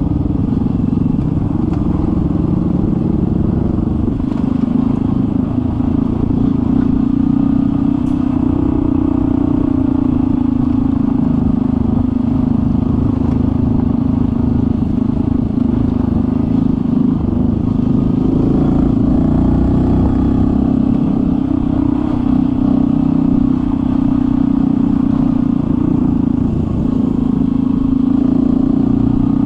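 Honda CT125's single-cylinder engine running steadily at trail-riding speed on a dirt track, its pitch drifting only a little, with clatter from the bike over the rough surface.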